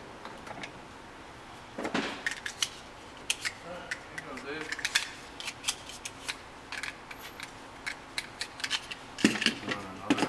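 Small metallic clicks and clacks of loading 9mm cartridges into the HK VP9 pistol's magazine and handling the gun, in irregular bursts, with two louder clacks near the end.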